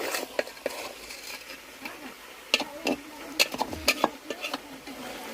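A metal ladle stirring chicken frying in spiced oil in a pan: a steady sizzle with irregular scrapes and clinks of the ladle against the pan, several in quick succession in the second half.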